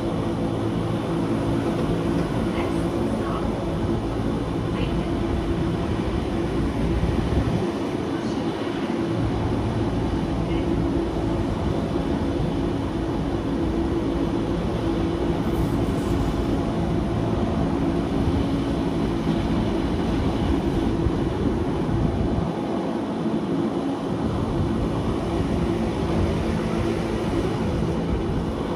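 Electric rack-railway train of the Wengernalpbahn running on the line: a steady hum from the traction motors and gearing over the rumble of wheels on rail. The low rumble eases off briefly twice, about eight seconds in and again a little past twenty seconds.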